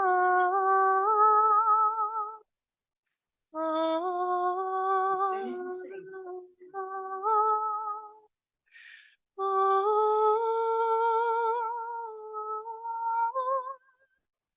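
A woman singing long, wordless held notes with vibrato, in three phrases separated by short pauses.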